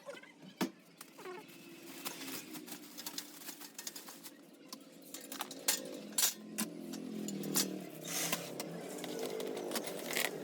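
Irregular metallic clinks and knocks from sewing machine stand parts and tools being handled during assembly, the sharpest a little after the middle, over a faint low hum.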